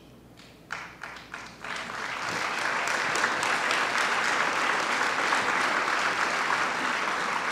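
Audience applause: a few scattered claps about a second in, building quickly into steady clapping from many hands.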